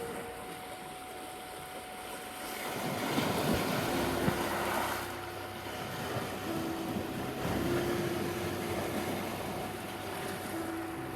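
Sea waves washing onto a beach, one wave swelling louder about three to five seconds in. Under the surf run a steady high 741 Hz tone and soft held music notes.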